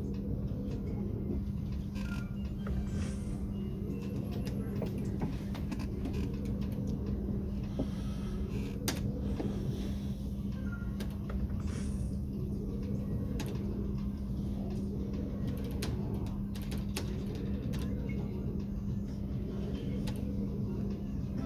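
Merkur Tizona slot machine cycling through spins, its reel sound effect rising and falling every two to three seconds over a steady low hum, with scattered faint clicks.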